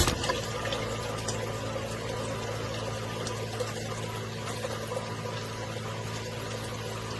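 Acquaer 1/2 HP submersible utility pump running with a steady low hum, water pouring and splashing with it.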